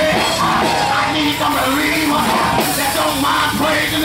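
Live gospel church music with loud shouting and singing voices of a worshipping congregation over it.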